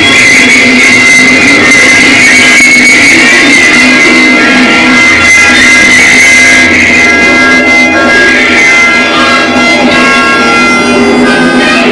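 Loud instrumental music with long held tones and guitar.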